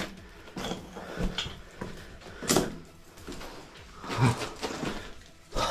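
Scattered scrapes and scuffs of a person moving over rock in a cramped cave passage, with a sharper scrape about two and a half seconds in and another a bit over four seconds in.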